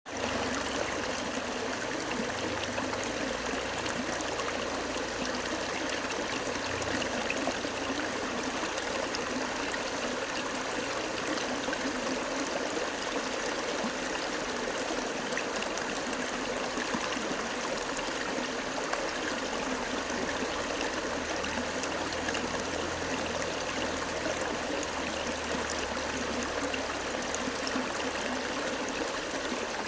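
Water flowing steadily: a continuous, even rush and trickle that does not change.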